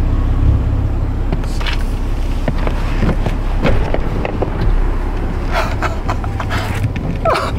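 A car engine idling with a steady low rumble, heard from inside the car, with scattered small knocks and rustling as someone climbs back into the seat.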